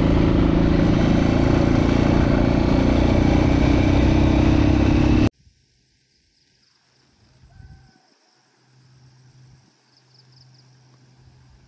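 Motorcycle engine running steadily under loud wind rumble on the microphone. It cuts off abruptly about five seconds in, leaving only faint background sound.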